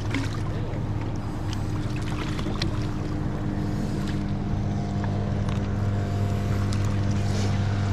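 Boat motor idling steadily with a low hum, while a hooked Chinook salmon splashes in the landing net beside the hull.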